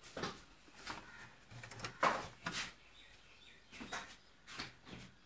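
Handling noises from a CRT TV chassis as a new capacitor is pushed into its power-supply circuit board: an irregular string of short scrapes, clicks and rustles, the loudest about two seconds in.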